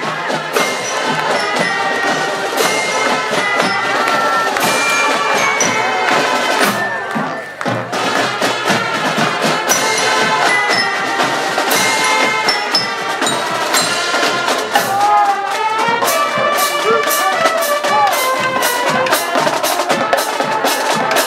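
A marching drum and bugle corps playing: brass carrying a tune over snare drums, with the drum strokes coming thicker near the end.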